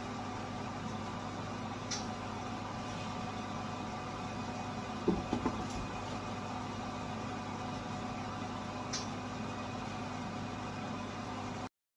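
Steady mechanical hum holding several constant tones, from the carbon coater's vacuum pump system running. A few faint clicks and a couple of soft knocks about five seconds in; the sound stops abruptly near the end.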